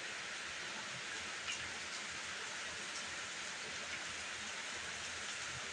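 Steady rain falling: an even hiss, with a few faint ticks.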